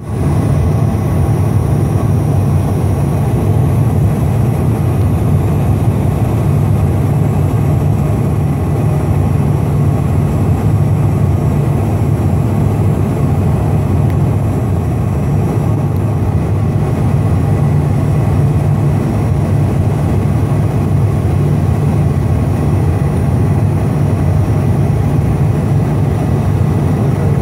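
Steady cabin noise inside a Cessna Citation XLS on long final approach: a low, even drone from its two rear-mounted Pratt & Whitney Canada PW545A turbofans blended with airflow rush, with a few faint steady high tones above it.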